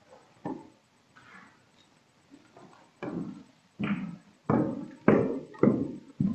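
Footsteps on the wooden stairs of a church pulpit, each step a hollow knock. Faint at first, then louder and closer from about three seconds in, at a little under two steps a second, as someone climbs up.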